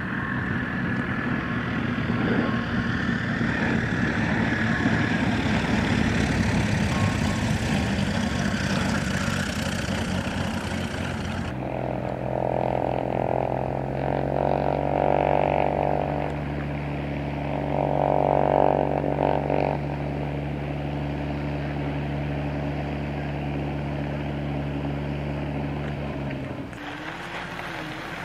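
Piston engines and propellers of light aircraft running. After a cut, a single-engine high-wing plane runs close by with a steady engine note that grows louder twice for a few seconds. Near the end the sound switches to a smaller, quieter engine with a wavering note.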